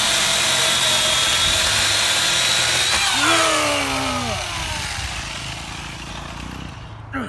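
Corded electric chainsaw cutting a branch with a steady high whine, then winding down with a falling pitch about three seconds in.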